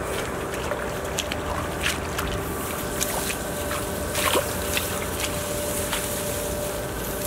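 Hands rummaging through grass and shallow muddy water, with small sloshes, rustling and a few sharp ticks, over a steady low rumble of wind on the microphone.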